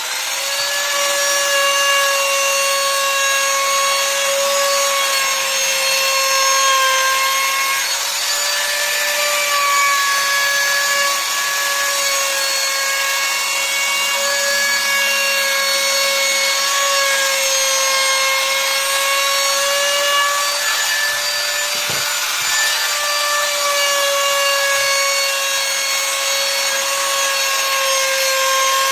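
Electric trim router running at full speed while cutting along the edge of a rubberwood frame: a steady high whine that dips slightly in pitch now and then, with one brief knock about three-quarters of the way through.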